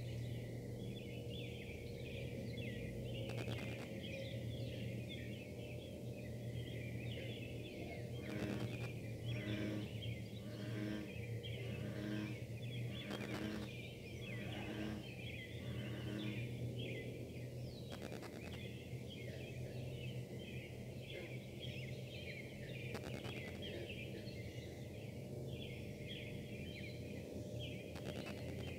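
Steady low buzzing hum of a metal-casting plant's machinery running at a distance, with a dense, irregular warbling layer of higher sounds above it. Through the middle a regular on-off pulsing comes and goes, about once a second, which the uploader puts down to wifi interference on the recording.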